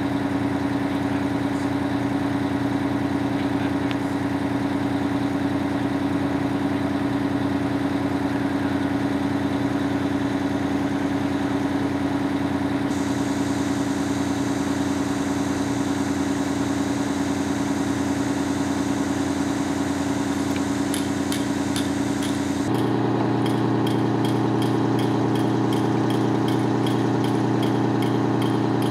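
Fire engine's diesel engine idling with a steady drone; its tone shifts about 23 seconds in. A light rapid ticking, about three or four a second, sits over it near the end.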